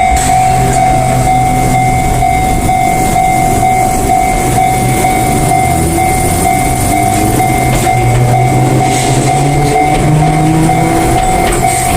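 Japanese level-crossing alarm ringing continuously as an Enoden (Enoshima Electric Railway) electric train runs through the crossing. The train's running noise and motor hum sit underneath, with a motor whine rising in pitch in the second half.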